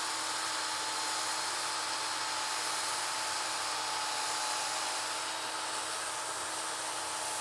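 A handheld drill spinning a 120-grit sanding disc against a wooden vessel turning on a lathe, sanding back black aniline dye: a steady motor whine over a continuous hiss of abrasive on wood.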